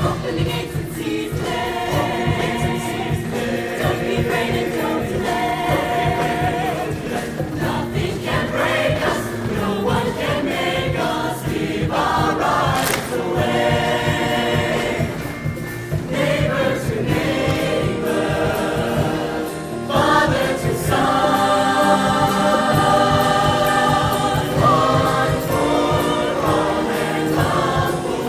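High school show choir singing in harmony, growing louder about twenty seconds in.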